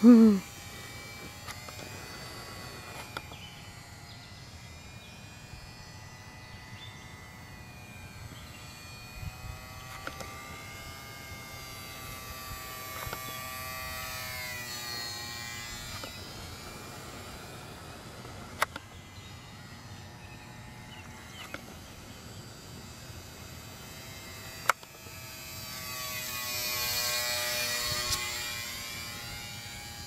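Whine of the small 8mm electric motor and propeller of a Nine Eagles 778B P-47 micro RC plane in flight, its pitch rising and falling as the plane flies about. It is loudest in a brief, quickly falling whine right at the start, and swells again near the end. Two sharp clicks come partway through.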